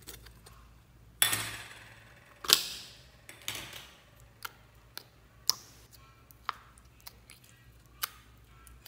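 Plastic lid of a small slime tub being pried off: two loud sudden plastic cracks, each trailing off briefly. Then a string of single sharp clicks from the tub and the sticky slime as fingers work it, one every half second to a second.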